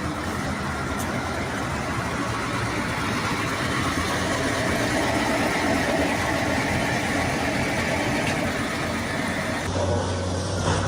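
A heavy vehicle's engine running steadily. Near the end the sound changes abruptly to a lower, steadier hum.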